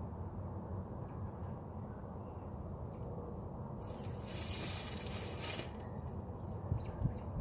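Outdoor ambience: a steady low rumble, with a hiss of about two seconds around the middle and a few soft thumps near the end.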